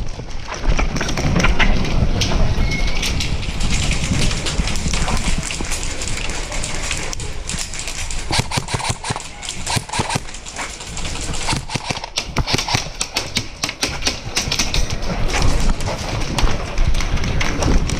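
Running footsteps and rattling gear, a continuous run of sharp clicks and knocks.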